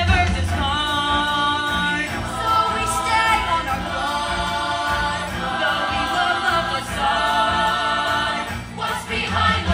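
Stage-musical ensemble singing together in several voices, with vibrato, over instrumental backing music, heard from the audience seats.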